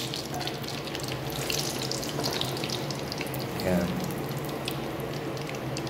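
Breaded chicken pieces deep-frying in hot oil in a wok: a steady sizzle with many fine crackles.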